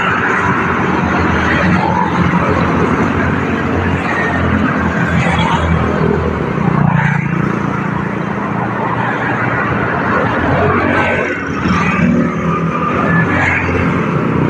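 Small motorcycle engine running steadily nearby, a constant low hum, with road traffic noise around it.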